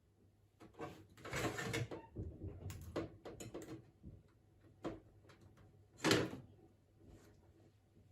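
Hard drive and computer case being handled during installation, metal and plastic parts scraping and clicking. There is a longer scrape about a second in, a run of small clicks, and a louder knock about six seconds in.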